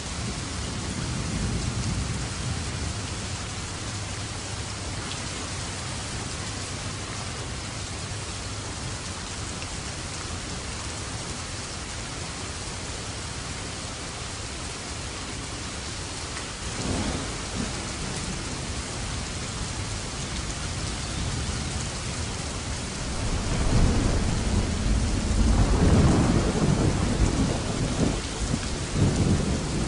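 Steady rain during a thunderstorm: a low rumble of thunder about a second in, a sharp clap about halfway through, and a long, loud rumble of thunder near the end.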